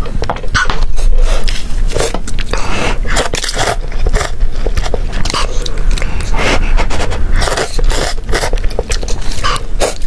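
Close-miked eating of cup rice noodles: slurping and chewing, a rapid irregular run of wet mouth smacks and clicks.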